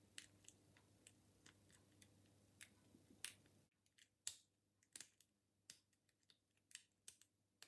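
Faint, scattered metallic clicks of a homemade half-diamond pick working the pins of a Burg Wachter Magno 400E 40 padlock held under tension, about ten irregular ticks.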